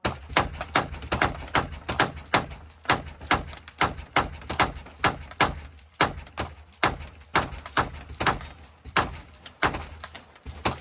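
Rapid semi-automatic gunfire, about three shots a second in a steady string, each shot a sharp crack with a short echo.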